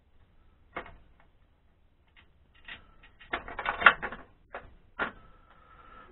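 Metal clicks and clatter as an aluminum mold guide and its bolt and nut are handled and tightened on a casting pot: a single click, then a dense rattling clatter a few seconds in, then two more sharp clicks.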